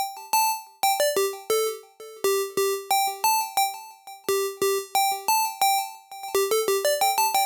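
Retro game-console-style synthesizer preset from UJAM Usynth Pixel playing a melody of short, bright staccato notes at about three to four a second. The notes come faster and denser near the end.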